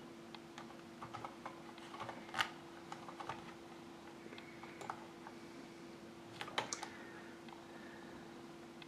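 Scattered clicks of computer keys being tapped, with two louder clicks about two and a half and six and a half seconds in, over a steady low hum.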